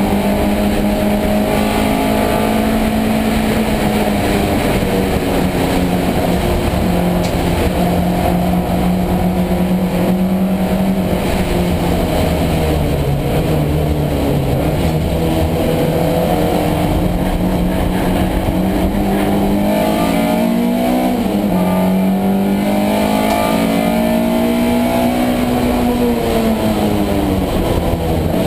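Race car engine heard inside the stripped, roll-caged cabin, running hard. The engine pitch rises and falls with the revs, drops away in the middle, then climbs again with a quick drop about twenty seconds in, over a constant road noise.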